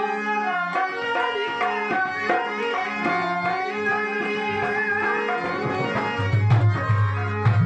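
Instrumental music: a hand drum in the tabla family plays a rhythm under steady held notes from a keyboard-type instrument, with heavier low notes about six seconds in.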